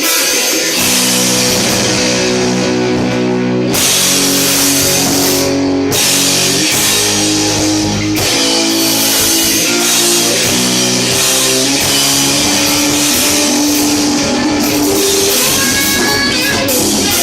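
Rock band playing live and loud: guitar over a drum kit, with sustained notes and no singing.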